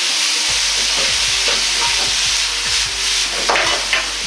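Stir-fry of beef, green beans and onion sizzling in a wok over a high gas flame, the sauce-coated food being tossed together for the final stir. A metal ladle scrapes and knocks against the wok about three times a second, over the steady hiss of frying and the low noise of the burner.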